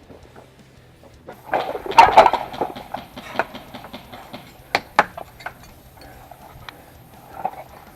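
Irregular sharp clicks and knocks: a quick cluster about two seconds in, then single ones every half second to second over a quiet background.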